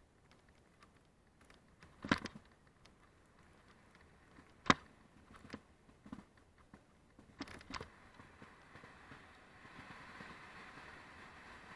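Mountain bike rolling down a dirt forest trail, heard from a camera on the bike or rider: a few sharp knocks and rattles a couple of seconds apart as the bike jolts over bumps, then a hiss of tyres and rushing air that builds near the end.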